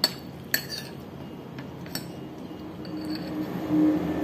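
Light clinks of china as a grilled green chili is dipped into a ceramic bowl of tomato dip with a metal spoon in it: three sharp ones in the first two seconds. A low steady hum grows louder near the end.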